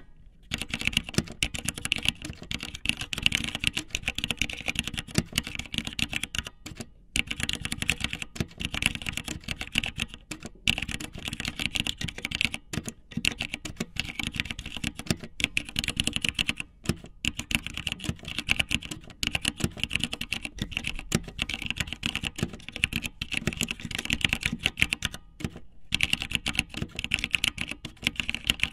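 Rapid, irregular clicking that runs in spurts, with short pauses every second or two, like fast typing.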